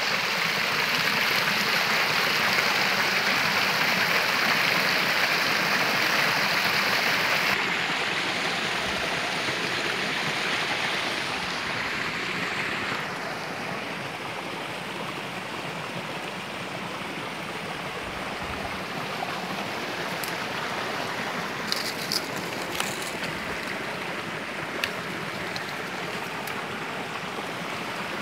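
Small stream running over a rocky ledge, a steady splashing rush that drops in loudness about eight seconds in and again near halfway, then carries on more softly. A few light ticks come near the end.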